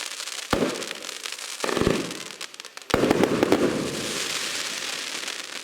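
Fireworks display: three heavy shell bursts, about half a second, two seconds and three seconds in, amid dense crackling from crackle stars that carries on after the last burst.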